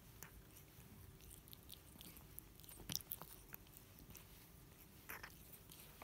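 A Scottish Fold cat licking and grooming its fur: faint, scattered wet clicks from its tongue, with a sharper click about three seconds in.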